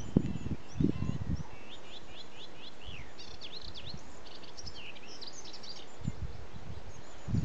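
Melodious warbler singing a rapid run of high, quickly changing notes lasting about three and a half seconds, beginning about two seconds in. Low muffled thumps come in the first second and a half and again briefly near the end.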